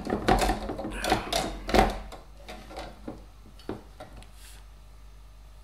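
Small parts and tools being picked up and handled on a workbench. There is rustling and light clatter in the first two seconds, then a few soft knocks before it goes quiet.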